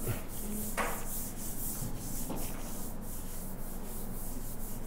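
Steady rubbing, rustling noise with a brief scuff about a second in.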